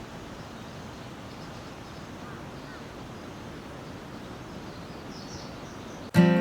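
Steady outdoor hiss with a few faint bird chirps, about two seconds in and again near five seconds. Strummed acoustic guitar music starts abruptly just before the end.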